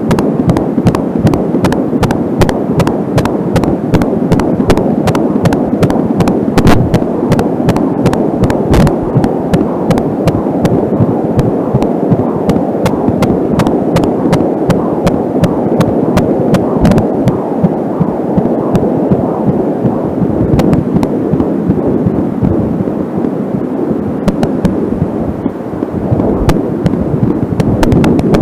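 Fetal heartbeat at 13 weeks picked up through an Angelsound home fetal doppler: a rapid pulsing over the doppler's loud steady hiss. Frequent sharp clicks of static, from a strained audio cable, run through it.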